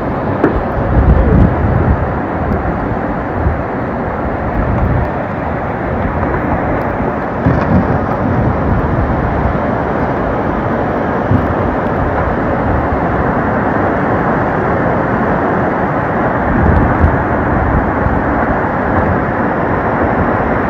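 Fast-flowing muddy floodwater rushing down a street in a steady, loud torrent, with a few stronger low rumbles, the strongest in the first couple of seconds.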